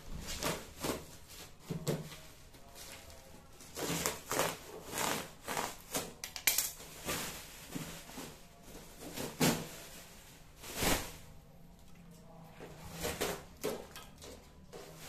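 Irregular knocks, clicks and rustles of a refrigerator condenser and its packaging being handled and unpacked, with a louder thud near the middle.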